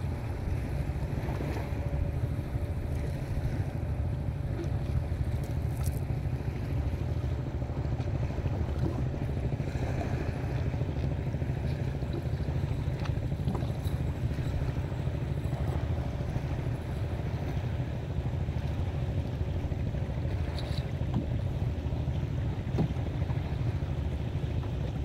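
Wind buffeting the microphone in a steady low rumble over shallow sea water lapping and sloshing. A few faint clicks and splashes come through as a chain-weighted cast net is gathered up and handled.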